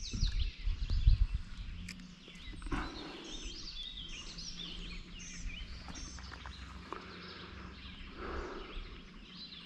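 Several birds chirping and singing, with low rumbling noise in the first second or so.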